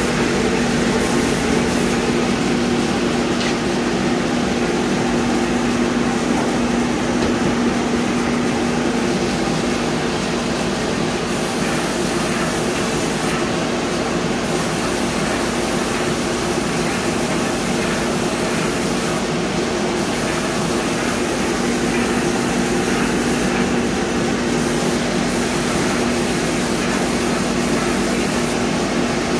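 Tritech airless paint sprayer running steadily, a constant hum under the hiss of the spray gun atomizing coating.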